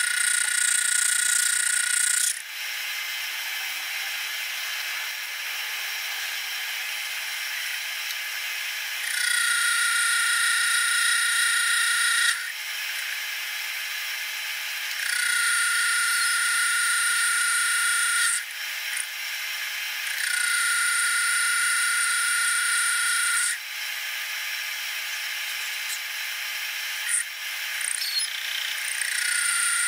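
Metal lathe turning a metal bar, its cutting tool facing the end of the bar. Each cut brings a loud high-pitched whine lasting about three seconds, five times over, with the lathe's quieter running between cuts.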